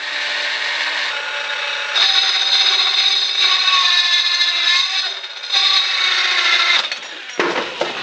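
Angle grinder running and grinding into the plastic casing of a Dyson Supersonic hair dryer: a steady motor whine that gets louder and harsher while the disc bites, from about two to five seconds in and again around six seconds. It eases off near seven seconds, with a short burst just before the end.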